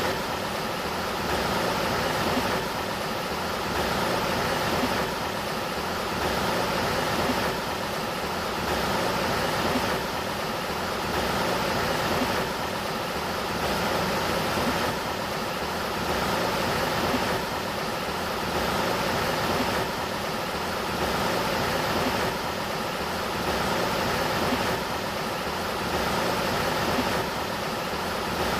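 Sacramento River water rushing steadily, swelling and easing about every two and a half seconds.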